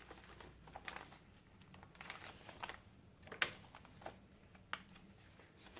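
Quiet paper rustling and light taps as the pages, tags and pockets of a handmade paper journal are turned and handled: about half a dozen short rustles and clicks, the sharpest about three and a half seconds in.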